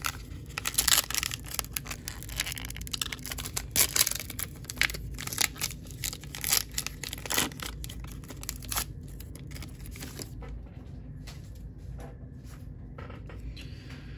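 Baseball card pack wrapper being torn open and crinkled by hand: a quick run of sharp crackles and rips that thins out for the last few seconds.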